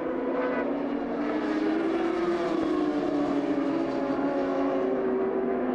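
Racing motorcycle engines running at high revs as two bikes ride together, a steady note whose pitch dips and rises slightly.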